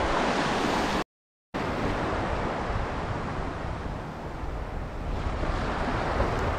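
Shallow ocean surf washing and lapping, with wind buffeting the microphone in a low rumble. The sound drops out completely for about half a second about a second in, then the water and wind carry on a little quieter.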